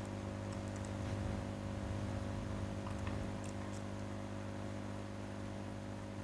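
Steady low electrical hum from the recording setup, with a few faint clicks of a computer mouse and keyboard about half a second in and around three seconds in.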